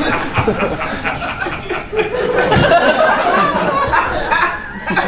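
Audience laughing and chuckling.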